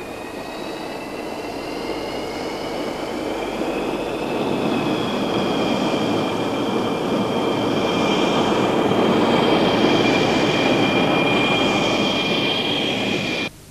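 Jet engine running: a rushing roar with a high, slightly rising whine that steadies and grows louder, then cuts off abruptly near the end.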